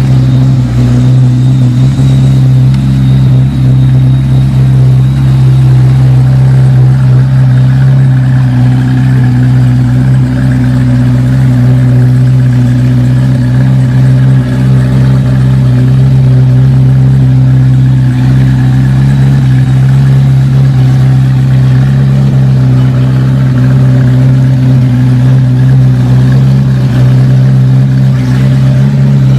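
Car engine running at steady revs: a loud, low, even drone that holds one pitch without rising or falling.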